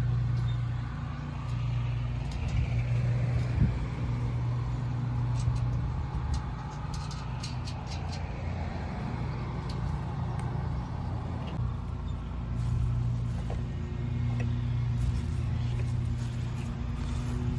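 Scattered light metallic clinks of new bolts and tools being fitted to a cast-iron garden bench, over a steady low hum.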